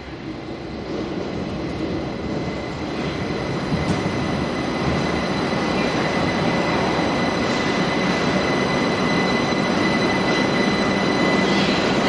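Linimo 100-series HSST maglev train pulling into the station on its linear-motor drive, with no wheels on rail. A rushing noise grows louder over the first few seconds and then holds steady, carrying a steady high electrical whine.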